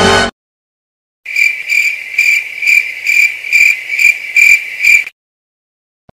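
Cricket chirping sound effect: a high, steady chirp pulsing about two to three times a second, starting about a second in and cutting off suddenly near the end.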